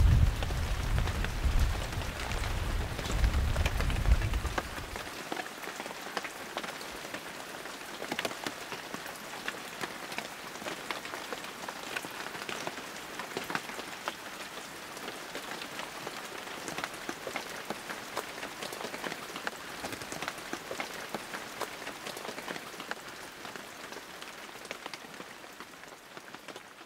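Steady rain falling on hard wet ground, an even hiss dotted with many separate drop ticks. A low rumble lies under it for the first five seconds, then stops and leaves the rain alone.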